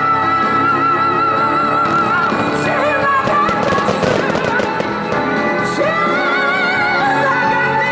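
A song with a sung vocal plays loudly over a sound system, and a cluster of firework bangs and crackles goes off about three to four and a half seconds in.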